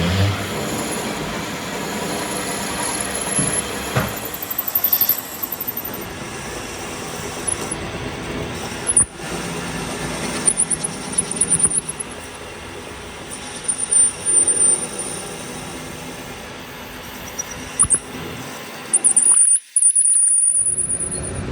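Metal lathe turning a steel tractor axle part with a carbide insert, running steadily while the cutting tool gives short, high-pitched squeals several times.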